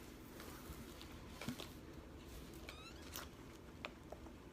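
Faint scattered clicks and rustles of small packaged items being handled, with a brief squeak about two and a half seconds in.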